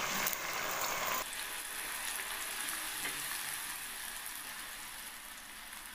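Onion paste sizzling as it fries in hot oil in a non-stick wok, stirred with a wooden spatula. The sizzle is loudest for about the first second after the paste goes in, then settles to a steady, slowly fading sizzle.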